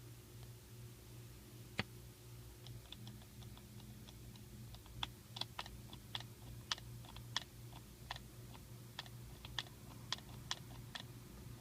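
Light, irregular clicking, thicker in the second half, over a steady low hum.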